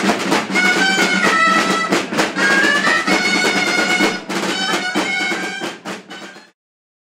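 Folk music from a wooden shawm playing a bright, high melody over two rope-tensioned drums beaten with sticks. The music fades out and stops about six and a half seconds in.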